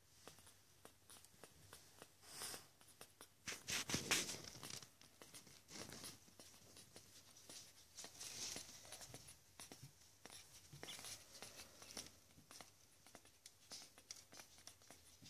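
Faint clicking and rustling from bichon frise puppies nursing on their mother, with a louder rustle about four seconds in.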